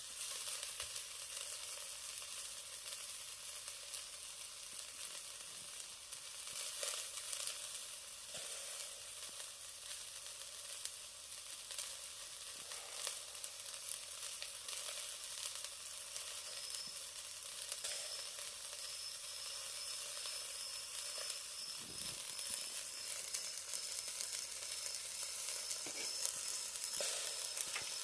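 Chicken thigh sizzling steadily over a charcoal grill, with scattered pops and crackles.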